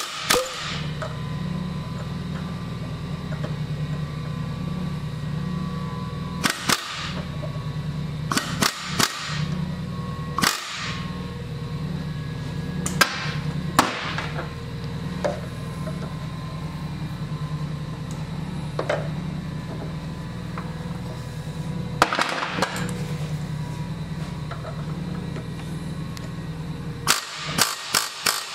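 Hand-held air drill run in about ten short bursts, each with a sharp hiss of air, as it drills a divot into the centre of the pulley on a Tecumseh engine's crankshaft. A steady low hum runs underneath.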